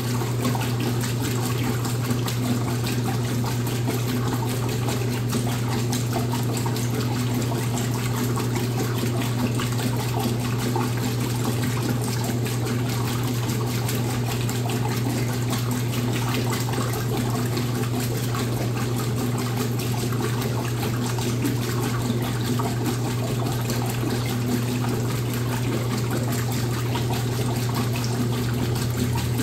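Washing machine running with water moving inside it, over a steady motor hum.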